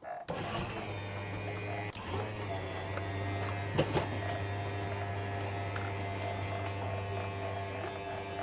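Travel trailer's electric slide-out motor running steadily as it pulls the slide room in, a continuous electric hum. It dips briefly about two seconds in, and there is a single knock about four seconds in.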